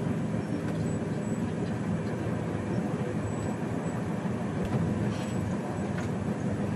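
Passenger train running at speed, heard from inside the carriage: a steady, even rumble of wheels on the rails and the car body.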